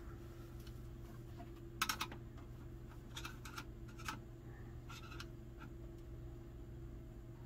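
Scattered light clicks and taps of hands handling a Ruger Mini-14's sling swivel and stock parts: a pair about two seconds in, then a quick cluster and a few more over the next three seconds. A steady low hum runs underneath.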